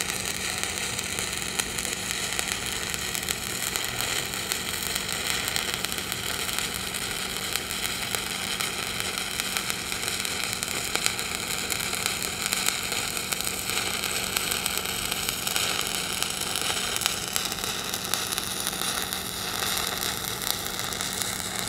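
Stick-welding (SMAW) arc crackling and sizzling steadily as the hot pass is run vertical-up on a steel test plate at about 95 amps. A faint steady low hum sits underneath.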